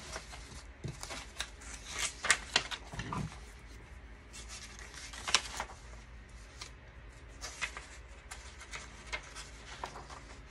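Sheets of printed paper rustling and sliding against each other as a stack of pages is leafed through by hand, with a few sharper crisp flicks, loudest about two to three seconds in.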